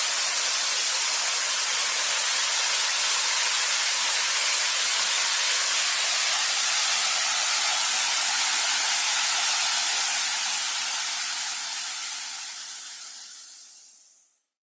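Waterfall rushing as a steady, loud hiss, which fades out about four seconds before the end.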